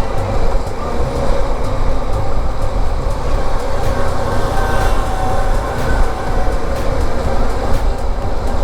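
Steady rumble of a vehicle on the move: engine and road noise with wind on the microphone, heaviest in the low end.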